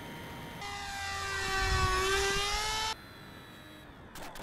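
Electric motors and propellers of an RC pusher-puller twin airplane whining, heard close up from an onboard camera. The whine dips slightly in pitch and rises again, loudest around the middle, then cuts off suddenly about three seconds in to a quieter whine.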